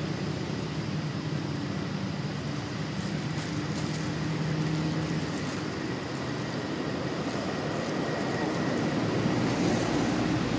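Steady low rumble of a running engine, with a faint high steady tone above it.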